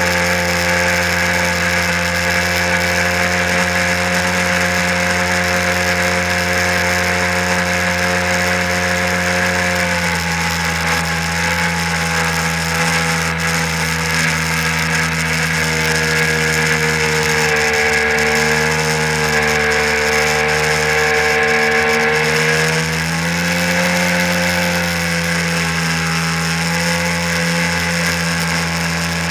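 1997 Sea-Doo SPX jet ski's two-stroke twin engine running hard while towing a tube, with the hiss of spray from the wake. The engine note shifts about ten seconds in and sags slightly between about sixteen and twenty-three seconds before picking back up.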